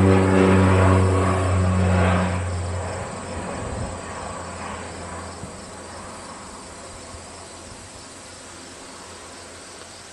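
Crop-duster airplane passing low overhead: a loud, steady propeller drone for the first two to three seconds, then fading away over the next few seconds. Insects chirr steadily underneath once the plane has gone.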